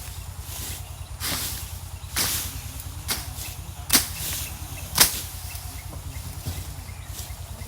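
Bush being cut by hand with a knife: five swishing slashes about a second apart, the two sharpest and loudest near the middle, over a steady low hum.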